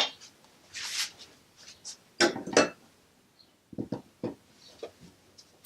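Kitchen handling sounds: a scattering of light knocks and clinks of dishes and utensils on a counter, loudest in a pair of knocks about two and a half seconds in, with a quick cluster of knocks near four seconds.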